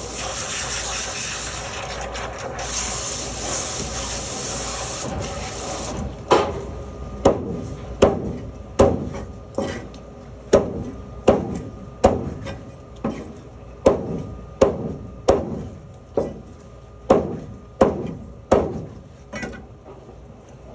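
A steady hiss, then from about six seconds in a run of about twenty sharp scraping strokes, a little over one a second, from a knife working a fish with hard scales.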